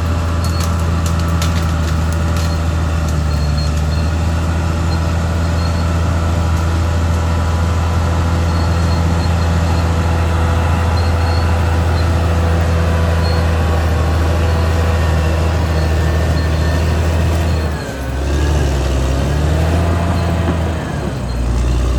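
Caterpillar D6R XL bulldozer's diesel engine running steadily at a high, even note, with a few sharp clicks in the first few seconds. After about 18 seconds the engine note dips and wavers.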